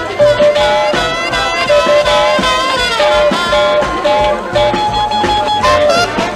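Swing-style jazz music: horns play held and sliding notes over a steady rhythmic beat.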